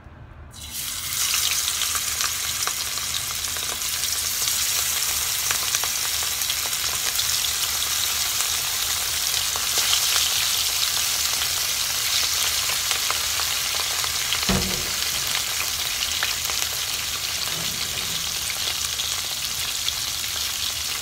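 Pieces of catla fish frying in hot oil in a pan. The sizzle starts suddenly about half a second in as the fish goes into the oil, then holds as a steady loud hiss. A brief knock comes about two-thirds of the way through.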